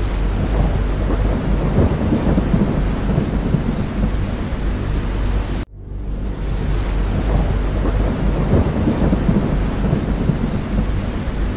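Steady heavy rain over a deep, continuous rumble. The sound cuts out for an instant about halfway through, then resumes.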